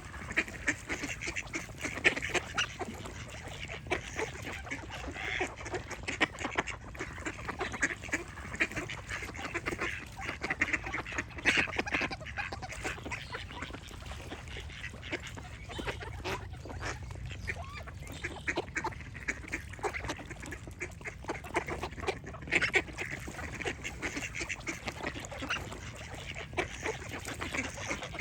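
A flock of ducks quacking continuously, many short calls overlapping with no pause.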